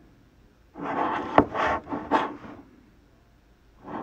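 Handling noise from a clear plastic card cube being turned in the hand: about two seconds of rough rubbing and scraping, starting about a second in, with one sharp click partway through.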